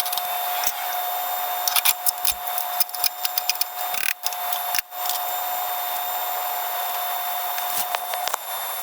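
Woodworking workshop sounds played back at twelve times speed: a rapid, high-pitched clatter of hand tools and wood, with a steady high hum that stops near the end.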